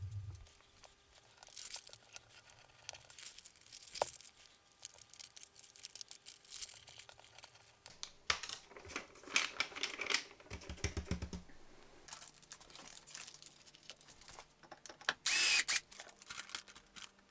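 Plastic laminating pouch film being handled and folded: irregular crinkling and rustling with scattered clicks and taps, the loudest crinkle about fifteen seconds in.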